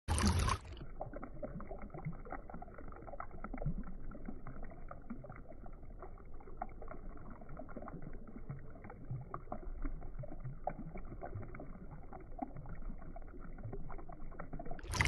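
Water trickling and splashing steadily as it spills over the rim of a planted pot into the shallow pebble-lined basin of a small fountain. A brief louder rush of noise opens it in the first split second, and another comes right at the end.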